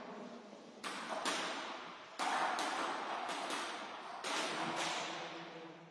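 Table tennis ball clicking off bats and table, about five sharp knocks spread over the few seconds, each followed by the long echo of a large hall.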